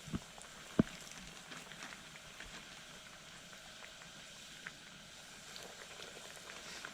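Battered cottontail rabbit pieces frying in hot grease: a steady sizzle thick with small crackles. Two short knocks come within the first second.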